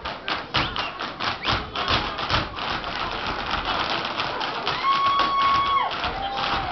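Irish dancers' hard shoes tapping and stamping in quick, dense rhythm with no music. About five seconds in a voice from the crowd gives a held whoop over the taps, with a shorter one just after.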